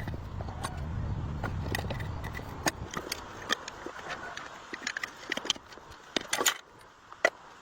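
Irregular sharp clicks and knocks, over a low rumble that dies away in the first half.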